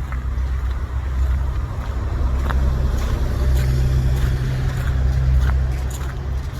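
Street traffic: a motor vehicle's engine drone that swells and then eases off as it goes by, with a few footsteps crunching in snow.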